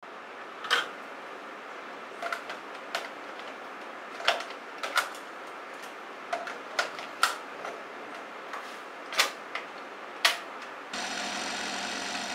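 Plastic clicks and clacks of a cassette tape being handled out of its case and loaded into a boombox's cassette deck, about a dozen sharp clicks spread irregularly. Near the end a steady hum and hiss sets in as the deck starts to play.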